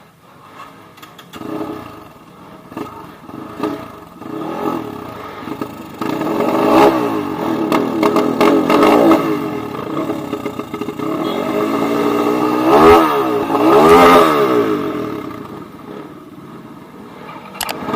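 Dirt bike engines revving hard on a climb, their pitch swinging up and down over and over. The engines get louder from about six seconds in and are loudest around thirteen to fourteen seconds in.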